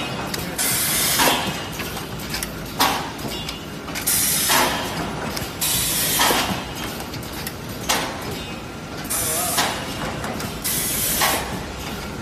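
Two-cavity linear PET bottle blow molding machine running: sharp hisses of compressed air venting, about every one and a half to two seconds, over a steady mechanical run noise.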